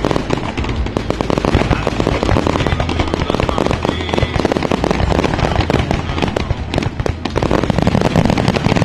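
Aerial fireworks barrage: many shells bursting in quick succession, a dense, continuous run of overlapping bangs and crackles.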